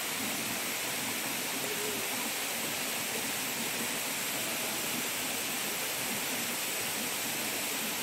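Steady rushing of falling water from a waterfall, an even hiss that holds at one level.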